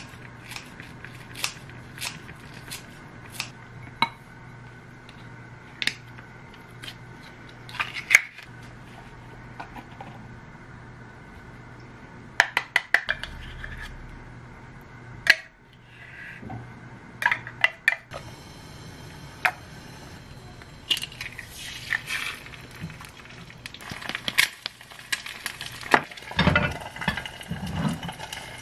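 Kitchen scissors snipping lettuce leaves, a steady run of snips in the first few seconds, then a spoon scraping and clinking as tuna is spooned out of a metal can into a ceramic bowl. Near the end comes denser clatter of a pot and its glass lid at the stove, with a hiss under it.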